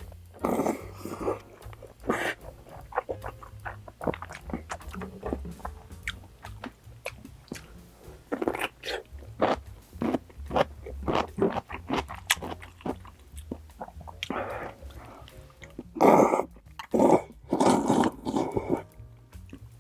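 Close-miked eating: crunching and chewing of food in many short crisp bites, with a few louder, longer bursts near the end.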